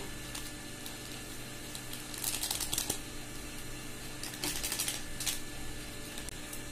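Crinkly rustling and light clicking of Wai Wai seasoning sachets and the dry snack being handled, in two short bursts a couple of seconds apart.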